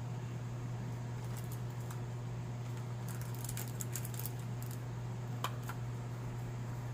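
Light clicks and taps of small tools and solder being handled on an electronics workbench, a cluster about three to four seconds in and a sharper tick a little later, over a steady low hum.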